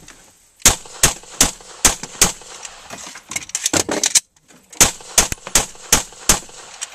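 Unsuppressed semi-automatic gunfire: a string of five shots about 0.4 s apart, a pause with fainter cracks and clicks, then a second string of about six shots.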